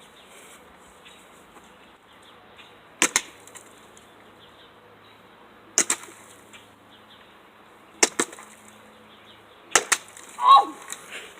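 Four chopping blows into a dead tree's wood, each a sharp double knock, two to three seconds apart.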